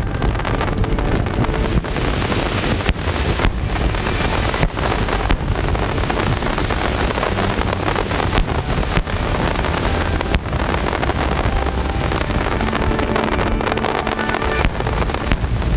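Fireworks barrage: many shells, some bursting in the sky and some at the sea surface as water fireworks, going off in quick succession. Sharp bangs come every second or so over a continuous crackling rumble.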